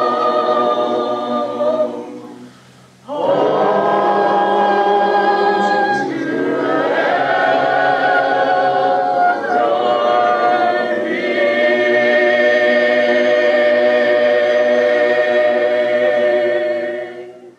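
Unaccompanied choir singing in harmony, the closing phrases of the song: a short break about two and a half seconds in, a few chord changes, then a final chord held for about six seconds that fades out near the end.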